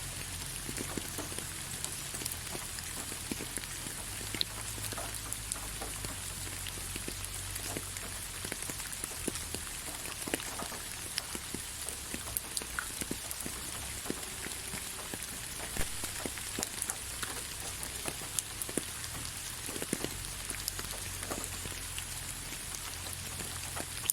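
Steady rain, with many separate drops clicking on surfaces over an even hiss, and a low hum underneath.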